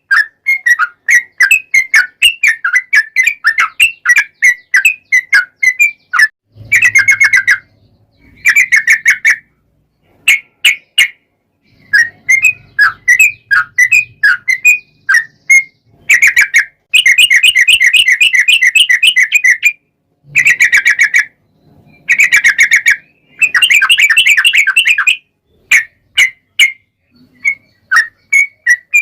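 Yellow-vented bulbul song: a steady run of short, bright chirping notes, broken several times by fast rolling trills lasting one to three seconds each.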